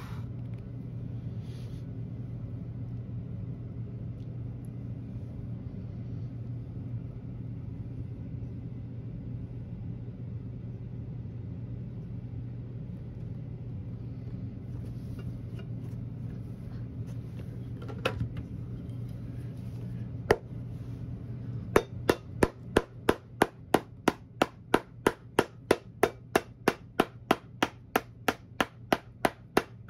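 Hammer blows seating a freshly cemented rubber heel top lift onto a leather shoe heel: two lone knocks, then from about two-thirds of the way in a steady run of sharp taps, about two a second. A low steady hum sits underneath.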